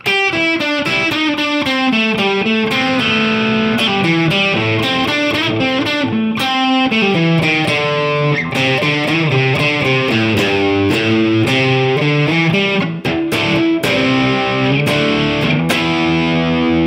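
Fender Stratocaster electric guitar played through distortion: a fast single-note riff, notes changing several times a second and ringing into each other, with a held note ringing near the end. The unplayed strings are left unmuted, so too much rings along and adds unwanted string noise.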